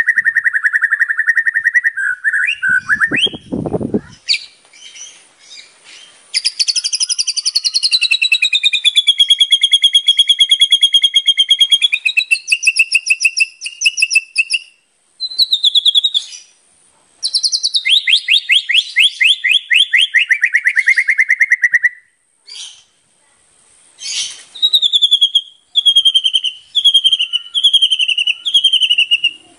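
White-rumped shama singing a loud, varied 'full isian' song packed with imitated phrases: long rapid trills that slide up and down with short pauses between them, then near the end a run of about six quick down-slurred whistles. A brief low thump comes about three seconds in.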